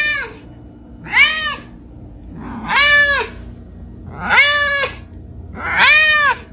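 Long-haired cat meowing loudly five times, about one every second and a half, each meow arching up and then down in pitch. The drawn-out meows sound word-like, like "Mom!" and "What?".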